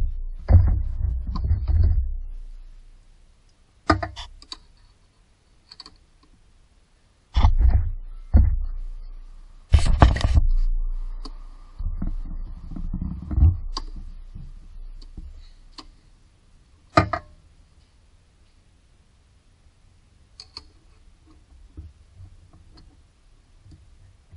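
Irregular clicks, clanks and low thumps of a long wrench and hands working the accessory drive belt and its tensioner in a car's engine bay. The busiest stretch is the first half, there is one sharp knock later on, and only faint ticks near the end.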